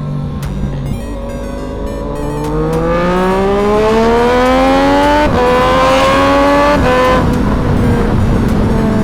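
Sport motorcycle engine with a full aftermarket exhaust accelerating hard, its pitch climbing steadily. Quick upshifts drop the pitch slightly about five seconds in and again near seven seconds, after which it runs at a steadier note.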